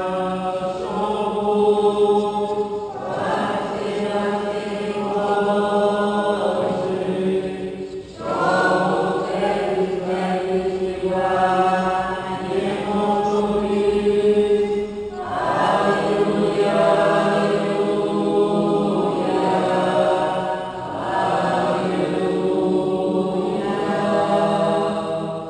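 Liturgical chant of a Ukrainian Catholic (Byzantine-rite) liturgy: voices singing in several long, sustained phrases with brief breaks between them, over a steady low held tone.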